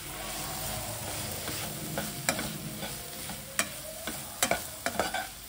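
Sliced onions and spice powders sizzling steadily as they fry in oil in a nonstick kadai. They are stirred with a perforated steel skimmer, which gives several sharp clinks and scrapes against the pan, most of them in the second half.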